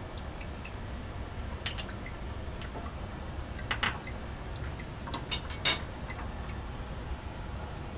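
A few light clinks and knocks of laboratory glassware and a metal clamp being handled as a condenser is taken down, the loudest about five and a half seconds in, over a steady low fume-hood hum.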